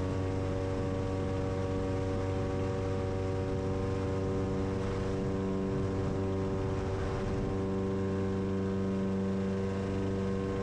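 Lake Buccaneer's 200 hp Lycoming engine and pusher propeller running steadily at high power, a loud, even drone with a clear pitch, as the amphibian speeds across the water on its takeoff run.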